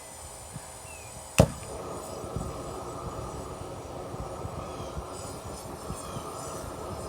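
Gas torch lit with a sharp pop about a second and a half in, then a steady rushing flame.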